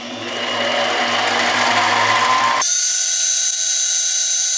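Harbor Freight Central Machinery 7x10 mini lathe running as a 3/16-inch twist drill feeds into a spinning aluminium part: a steady motor hum with cutting noise that builds over the first second. About two and a half seconds in, the sound jumps abruptly to a higher-pitched whine as the footage is sped up six times.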